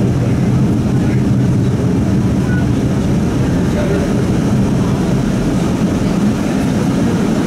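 Steady low rumble and hum inside a moving CAF Urbos 3 streetcar as it runs along the rails.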